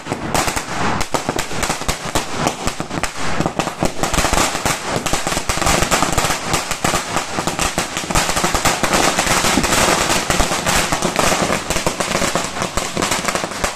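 Firecrackers bursting on the ground in a rapid, unbroken run of sharp pops and crackles.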